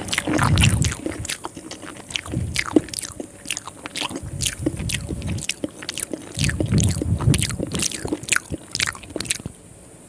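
Close-miked mouth sounds of eating soft rice noodles soaked in sweet coconut milk: wet chewing with many sharp lip smacks and clicks, dropping away near the end.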